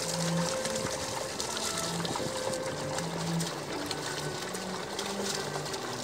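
Hooves and bare feet sloshing and squelching through flooded paddy mud as a pair of oxen draw a wooden plough through it, with many small wet splashes. A faint low hum that changes pitch every half second or so runs underneath.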